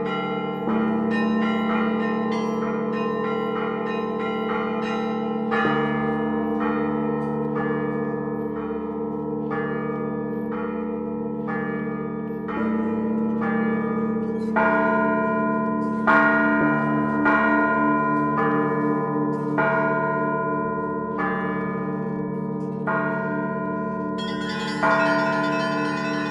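Russian church bells rung in a zvon. Low bells hum underneath while smaller bells are struck in a steady rhythm, a little faster than one stroke a second. The strokes grow louder and brighter about halfway through.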